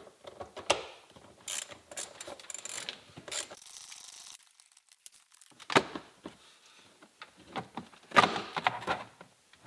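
Hand socket ratchet clicking in quick runs as a trim screw is backed out, followed by a few louder knocks and rustles of the loosened plastic trim being worked free.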